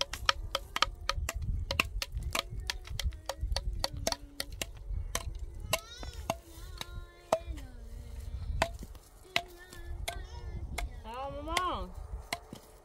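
Sharp chopping or striking knocks, several a second at first, coming more sparsely after about five seconds. A few short high rising calls and a rising cry come between them.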